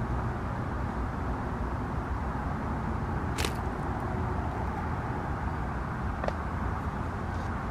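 Steady low outdoor background rumble at a lakeside, with one sharp click about three and a half seconds in and a fainter one near six seconds.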